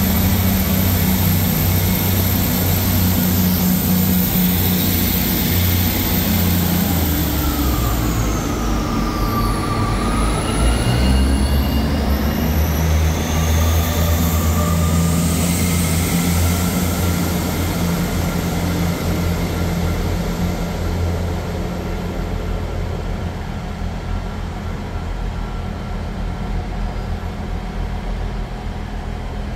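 Diesel multiple unit's underfloor diesel engines running with a steady low throb, and a whine that dips in pitch and rises again about ten seconds in.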